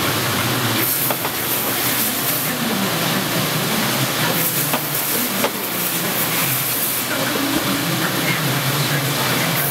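Steady, loud hiss of workshop machinery with a wavering low hum underneath and a few faint clicks.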